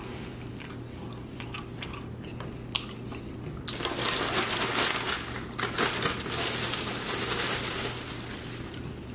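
Paper napkins or wrapping crumpled and rubbed, most likely while wiping up a spill. A dense crinkling starts about four seconds in and dies down near the end, with a few soft clicks before it.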